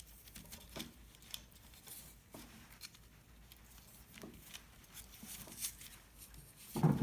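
Faint, scattered clicks and rustles of hands handling wires and a plastic wiring-harness connector.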